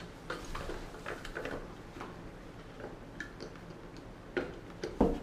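Small clicks and taps of plastic GoPro mount parts being handled and fitted on a helmet, with two louder knocks near the end.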